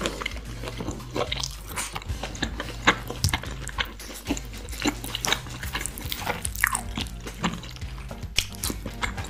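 A person biting into and chewing a slice of pizza, with many quick mouth clicks and smacks.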